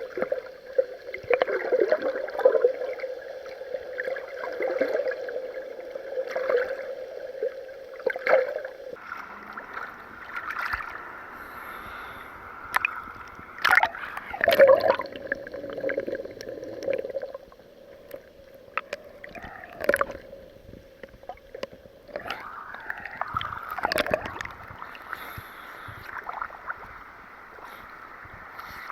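Water sloshing and gurgling against a waterproof camera housing at the surface, with a muffled hum and scattered sharp knocks as the housing is jostled.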